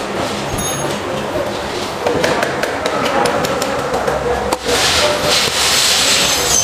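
Repeated knocks and taps on a truck cab's metal windscreen frame as the rubber seal channel is fitted into it, over steady workshop noise that turns into a louder hiss in the last couple of seconds.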